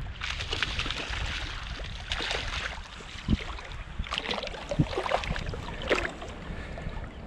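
A hooked fish splashing and thrashing at the water's surface as it is drawn in close, in about four bursts of splashing, over a low wind rumble.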